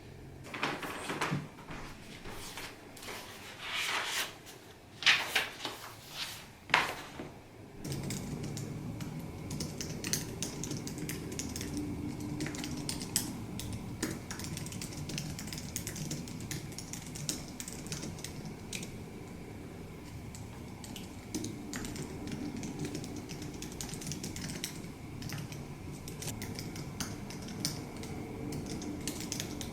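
A few knocks and handling noises, then from about eight seconds in, continuous typing on a keyboard over a low steady background hum.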